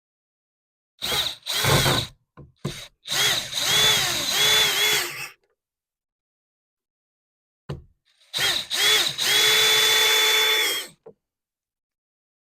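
Power drill running in several short bursts, its whining motor pitch dipping and recovering under load, then one longer steady run about eight seconds in.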